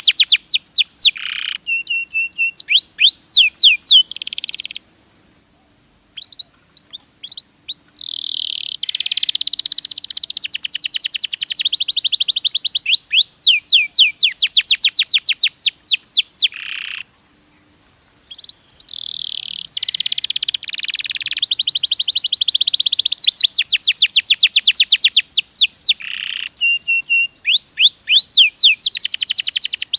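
Domestic canary singing long, rapid trills of repeated high notes, phrase after phrase, with two short breaks in the song.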